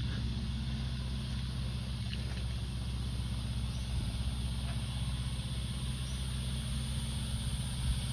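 A steady low motor hum, holding unchanged throughout.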